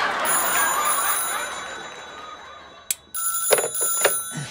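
Audience laughter fades away over the first two seconds or so. Then, about three seconds in, a desk telephone's bell starts ringing.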